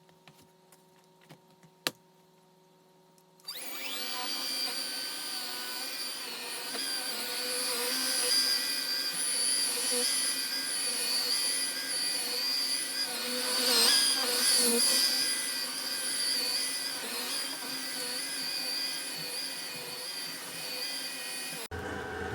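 Shark ION P50 cordless vacuum running steadily with a whir and a high-pitched whine, switching on about three and a half seconds in after a faint click.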